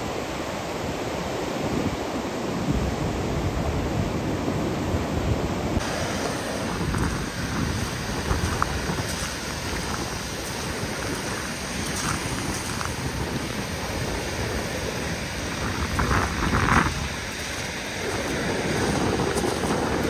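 Caspian Sea surf breaking and washing on a beach, a steady rushing noise, with wind buffeting the microphone.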